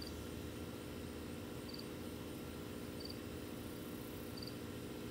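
Faint steady electrical hum from a manual battery charger running an electrolysis rust-removal bath, with faint short chirps about every second and a half.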